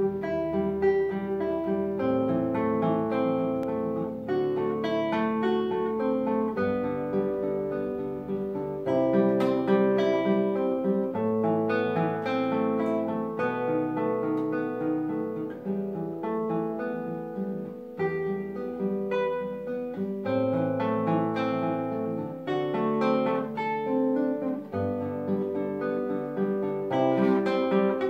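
Solo classical guitar played fingerstyle: a plucked melody over bass notes, each note ringing and fading.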